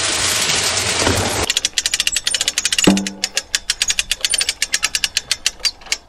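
Shelled corn pouring from a bag into a metal feeder drum, a steady hiss. After about a second and a half it gives way to rapid ratchet-like clicking, about eight to ten clicks a second, with one ringing metal knock near the middle, as the feeder's spinner box under the drum is adjusted by hand.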